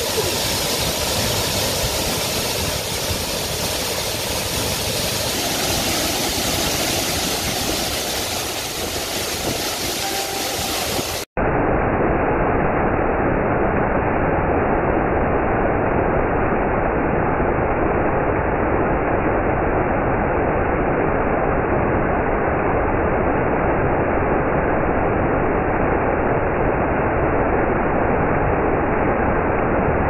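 Sai Yok Noi waterfall pouring over rock ledges: a steady rush of falling water. About eleven seconds in the sound breaks off for an instant and returns duller and a little louder.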